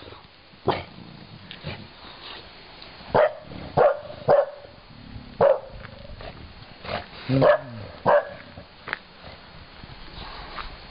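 English bulldog barking: about nine short single barks at uneven intervals, with a longer pause between the first bark and the next.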